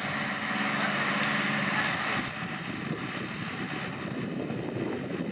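Tractor engine running steadily as the tractor is driven, a little louder for the first two seconds before easing slightly.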